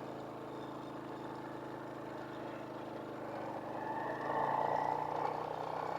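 Small single-cylinder four-stroke motorcycle engine (a Honda Wave 100 cc) running steadily while riding, growing louder with a higher tone from about four seconds in.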